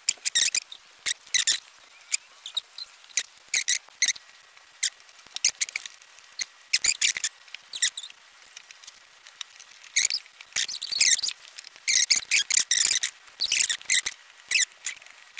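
Screws being driven by hand with a small screwdriver to fasten a case fan to a computer case: short, high-pitched squeaks as each screw turns. They come in irregular runs and crowd together from about ten seconds in.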